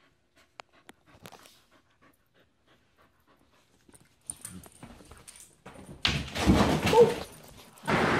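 A border collie panting softly, then a loud burst of rustling and handling noise about six seconds in, with a brief whimper-like squeak. Right at the end a steady wind noise on the microphone takes over.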